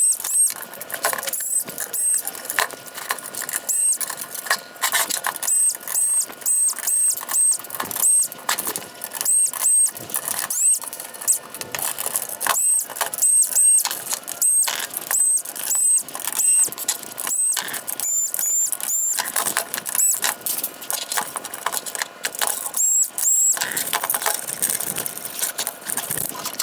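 Small electric screwdriver spinning in many short bursts, each one whirring up to speed and stopping, as it backs out T20 Torx screws from a headlight assembly.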